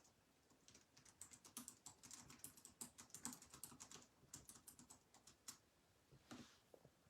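Faint typing on a computer keyboard: a quick, irregular run of key clicks that stops about five and a half seconds in.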